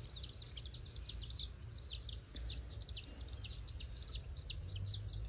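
Several domestic baby chicks peeping continuously, a rapid overlapping stream of short, high, downward-falling cheeps, several each second, over a low rumble.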